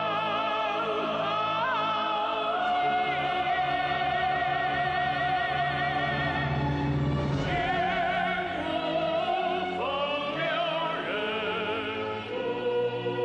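Opening theme music in an operatic style: sustained melody lines with heavy vibrato over fuller accompaniment, changing phrase about halfway through.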